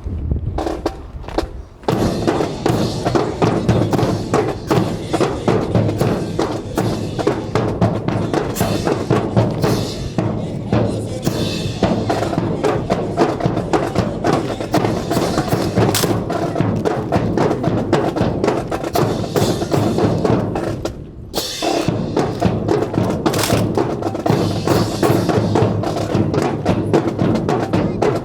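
A marching band playing, with loud drums and sharp wood-block-like clicks, pausing briefly twice: near the start and about two-thirds through.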